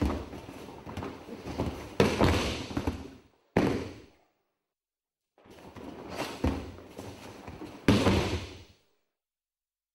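A body is thrown onto a tatami mat, with bare feet sliding and clothing rustling, and loud thuds as the partner lands: about two seconds in, again briefly soon after, and twice more in a second spell of movement near the end. Between the two spells the sound cuts out to silence.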